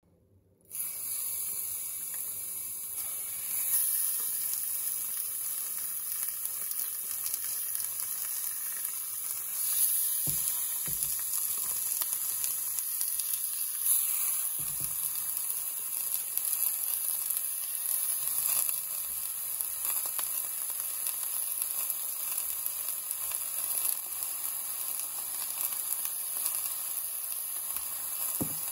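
Tenderloin slices sizzling as they fry in a hot cast iron skillet, a steady hiss, with a few light knocks as more pieces are laid in the pan.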